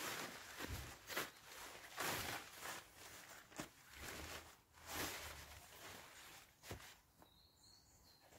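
Tent fabric rustling and swishing in irregular bursts as the half inner is spread out and shifted on the tent floor, dying down about seven seconds in.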